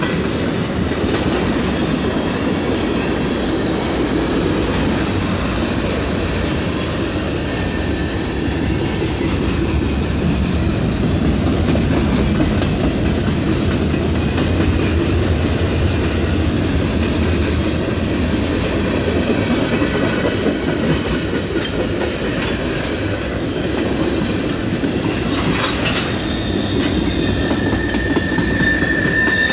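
Freight train of tank cars and boxcars rolling past close by: a steady, heavy rumble of wheels on the rails. Thin, high wheel squeals come in briefly about seven seconds in and again near the end.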